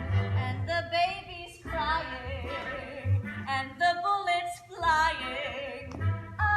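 Music: a woman singing over an accompaniment, her voice gliding between held notes.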